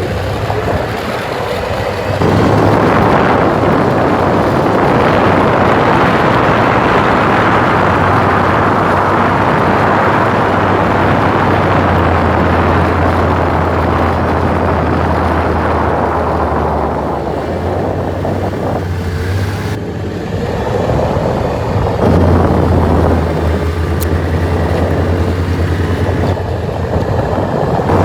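Yamaha Viking snowmobile running under way: a steady low engine hum with a broad rush of track and snow noise that swells and eases as the throttle and trail change.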